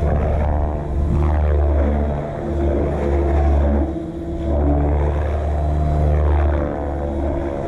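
Electric RC helicopter flying, its rotor and motor whine sweeping up and down in pitch as it passes back and forth, over a heavy low rumble.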